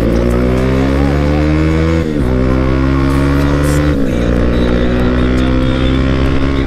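Bajaj Pulsar NS200's single-cylinder engine accelerating hard under the rider, its pitch climbing and dropping sharply with an upshift about two seconds in and again about four seconds in, then climbing once more.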